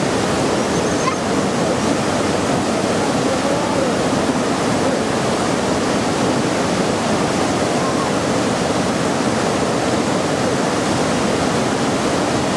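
Waterfall pouring in a steady, unbroken rush of falling water.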